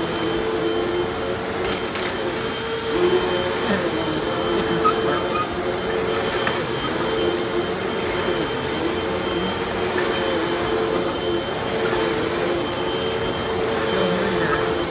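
Fifteen-year-old Hoover vacuum cleaner running steadily while vacuuming carpet: a constant motor whine with two tones that waver slightly in pitch.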